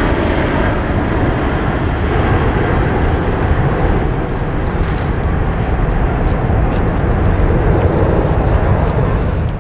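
Boeing 747-400F freighter's four jet engines at climb thrust, a steady, loud roar as the jumbo climbs away after takeoff. The sound dips slightly about four seconds in.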